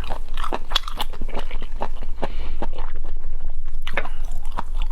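Close-miked eating of seafood: biting and chewing with irregular crunches and wet clicking mouth noises.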